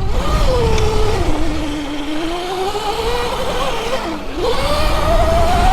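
72-volt Sur Ron electric dirt bike's motor whining as the rider works the throttle: the pitch sinks over the first couple of seconds, dips again about four seconds in, then climbs near the end, over a low rumble of wind and tyres.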